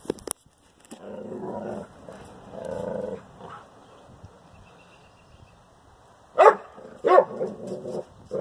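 Dog growling low twice, then two loud barks near the end followed by a few softer ones, at a snake it has found.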